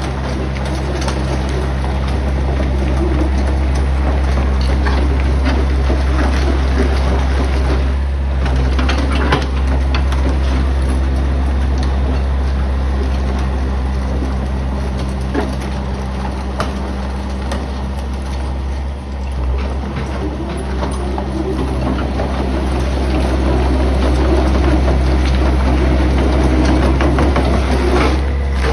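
Backhoe (hydraulic excavator) diesel engine running steadily, with scattered scraping and knocking as the bucket works through crushed stone.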